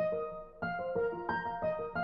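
Background music: a keyboard with a piano sound playing a slow line of single notes, a new note about every half second, each left to ring out and fade.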